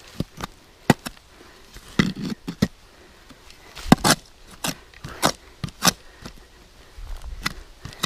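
Short-handled digging shovel chopping and scraping into soil at the bottom of a hole: a run of sharp, irregular strikes, one to three a second, with the loudest around the middle.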